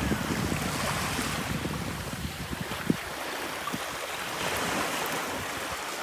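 Sea waves washing onto the shore, with wind buffeting the microphone.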